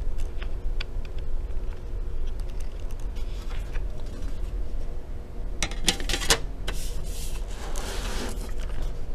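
Hands handling an opened MacBook Pro: a few faint clicks early, then a cluster of sharp clicks and knocks about six seconds in, followed by a scraping rustle as the aluminium bottom case is handled back into place, over a low steady hum.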